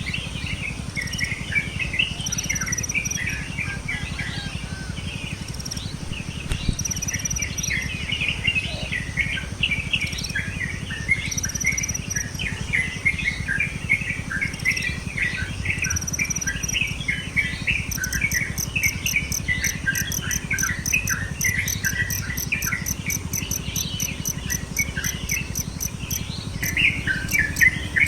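Many small birds chirping and calling over one another, with a short high whistle repeating every few seconds. About two-thirds through, a fast, even high pulsing of about five beats a second sets in and stops shortly before the end.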